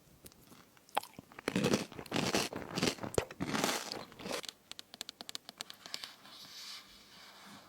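Crunchy fruit crisps being bitten and chewed close to the microphone: loud crunches through the middle, thinning to fine crackles and softer chewing near the end.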